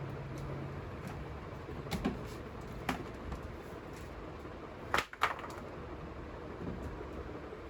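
Steady workshop background noise with a few sharp clicks and knocks, the loudest two close together about five seconds in. A low hum stops just under a second in.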